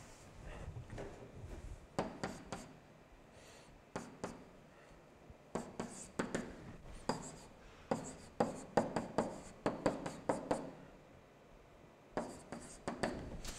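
Stylus writing on an interactive whiteboard: clusters of short taps and scratchy pen strokes as characters are written, with brief pauses between groups.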